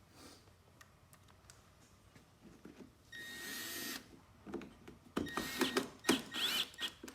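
Power drill driving screws into a back panel: one steady run of about a second near the middle, then a string of short trigger bursts near the end, a few with the pitch rising.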